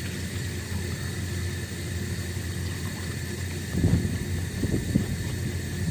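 Knife scraping the scales off a barred knifejaw (rock bream), with a few rough scrapes about four seconds in, over a steady low rumble.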